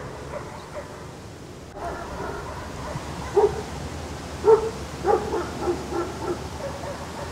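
A dog giving a run of short, excited yips and barks, starting about halfway through, with the loudest bark near the middle.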